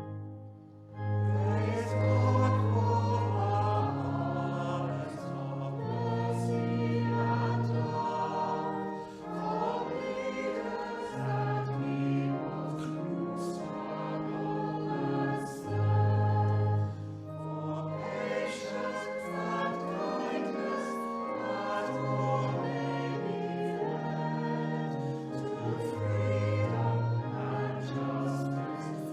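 A hymn sung by a choir with instrumental accompaniment and sustained low notes. It swells in about a second in.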